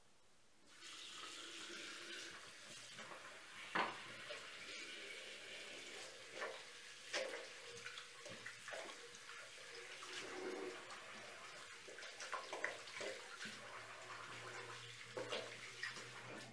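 Bathroom sink tap turned on about a second in and running steadily into the basin, with splashes as water is scooped onto the face; the running stops near the end.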